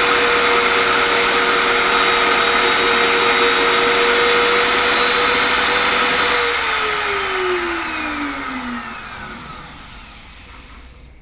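A router and a drill press run together while the router bit turns a square hardwood blank into a dowel, a loud steady motor whine. About six seconds in they are switched off and the whine falls in pitch and fades as they spin down.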